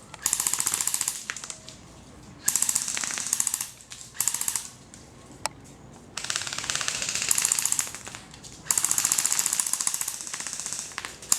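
Airsoft guns firing on full auto: about five bursts of rapid shots, the longest lasting over two seconds, with a single sharp shot between them.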